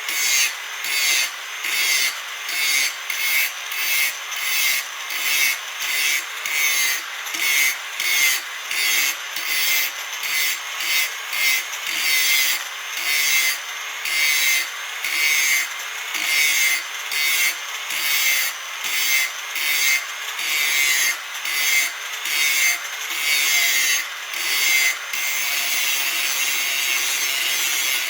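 A grinder grinding in regular rasping strokes, about three every two seconds, that change to a steady, unbroken grind for the last few seconds.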